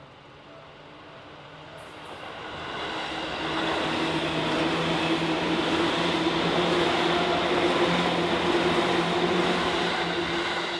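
Seibu Railway electric train approaching and passing: wheels on rails and the train's steady running hum build up over the first few seconds, stay loud, then begin to fade near the end.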